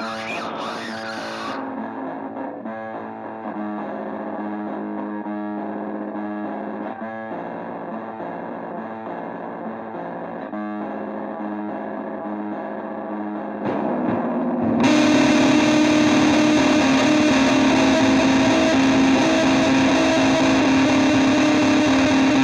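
Rock music with distorted electric guitar and no vocals: a muffled, thin-sounding guitar riff, then about fifteen seconds in the full band comes in louder with a held distorted chord.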